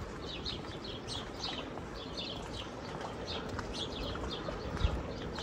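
Small birds chirping, many short high calls repeating over and over above a steady low background, with one dull low thump near the end.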